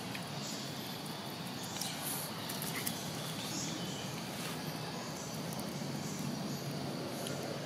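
Outdoor ambience: a steady low rumble with scattered small clicks and rustles and a few faint high chirps.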